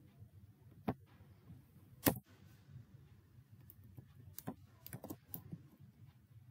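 Computer keyboard keystrokes: about seven separate, unhurried key presses, the loudest about two seconds in, with a cluster of quicker ones around the five-second mark.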